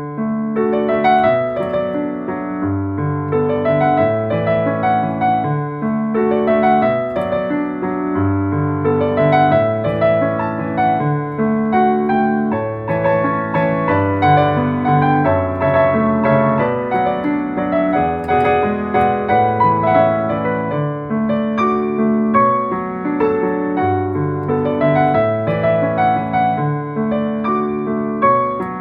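Piano music playing a light, gentle tune with a steady rhythm in the left-hand accompaniment.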